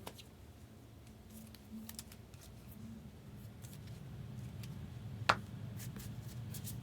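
Faint handling sounds of trading card packaging: small clicks and snips, with one sharper click about five seconds in, over a low steady hum.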